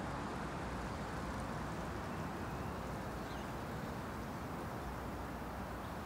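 Steady rushing forest ambience: an even, unbroken noise, fullest in the low and middle range, with a faint high chirp about three seconds in.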